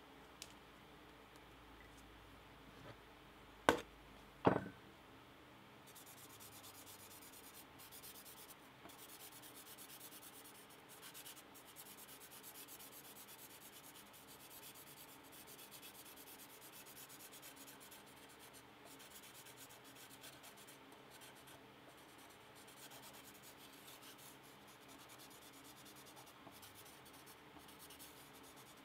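Felt-tip permanent marker rubbing along a steel blade blank, coating the metal with ink: a faint, steady scratchy rubbing from about six seconds in. Just before it, two sharp clicks under a second apart, the loudest sounds.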